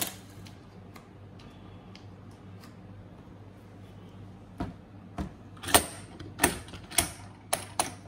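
Faint room hum, then from about halfway a series of sharp clicks and knocks, roughly two a second, some with a short metallic ring: a plastic coin tube of 2-ounce silver Queen's Beast Yale coins being handled and opened, the coins clinking inside.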